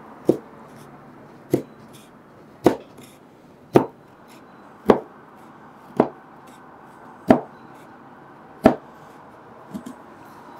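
A 3/4-inch bench chisel chopping out a dado across a wooden board, eight sharp strikes a little over a second apart, with a fainter knock near the end.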